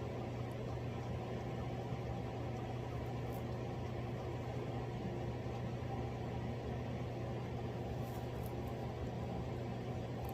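Steady low hum with an even hiss, like a running fan or appliance, with a few faint ticks about three seconds in and again near the end.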